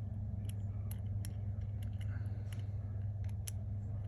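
Scattered small, sharp clicks and ticks from a Spyderco SpydieChef folding knife being handled as its pivot screw is started, over a steady low hum.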